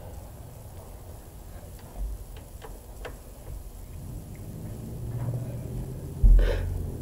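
Socket ratchet on a long extension clicking in short, irregular runs as it turns a bolt on a Kubota tractor engine. A single loud metallic knock comes near the end.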